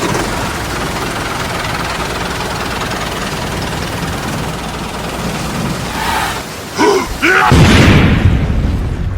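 Steady loud noise, then a few short sweeping sounds and a loud boom-like burst about seven and a half seconds in.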